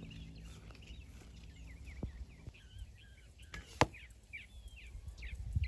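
An arrow strikes a 3D deer target with one sharp hit about two-thirds of the way through, after a couple of faint clicks. Birds chirp in the background.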